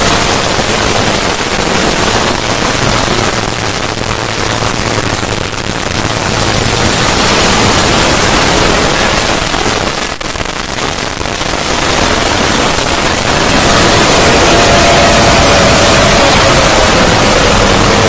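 A loud, harsh, static-like noise filling the whole range, part of a synthetic 'void' sound effect. It dips briefly about halfway through, and near the end a faint wavering tone slides slowly down beneath the noise.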